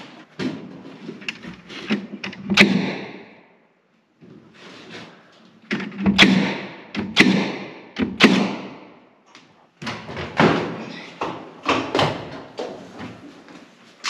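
A staple gun firing into wood overhead, fastening PEX radiant-heat tubing into the joist bays: about half a dozen sharp, loud knocks a second or more apart, each ringing briefly, with lighter clicks and taps between them.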